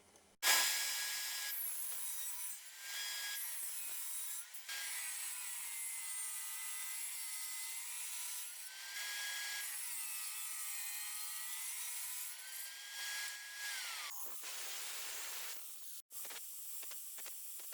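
A power tool running and cutting, its motor pitch dipping and recovering several times as it bites under load, stopping about 14 seconds in; short clicks and handling noises follow.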